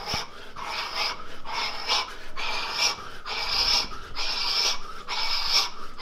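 A man breathing hard while punching: about seven sharp, hissing breaths, roughly one a second, growing longer toward the end, the heavy breathing of a near-finished round of fast straight punches.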